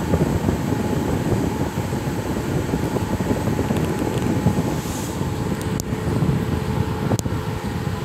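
Steady low rumbling noise, with two faint sharp clicks late on.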